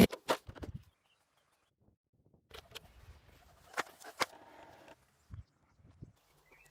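Scattered faint clicks and light knocks: a few in the first second, then a looser run of them a couple of seconds later.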